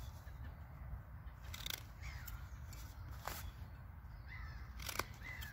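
Swiss Army knife blade cutting into a wooden stick while carving a notch: three short, sharp cutting strokes about a second and a half apart. Faint bird calls in the background.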